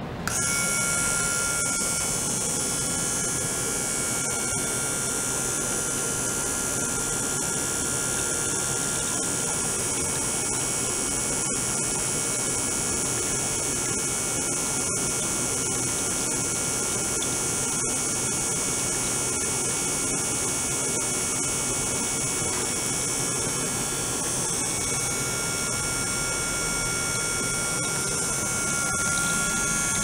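Steady high hiss with a few thin steady whining tones and a low hum from a running small-pump liquid-circulation rig with an ultrasonic probe, as water streams through a glass vessel and spills into a stainless steel tray.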